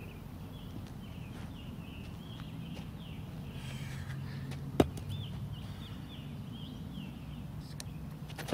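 Birds chirping in quick repeated calls against a low steady background hum, with one sharp knock about five seconds in.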